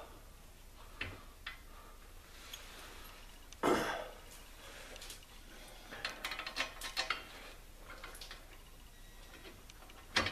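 Metal clinks and clanks of a brake caliper bracket and its bolts being handled and fitted against the hub and rotor: one louder clank about four seconds in, then a quick run of light clicks a couple of seconds later.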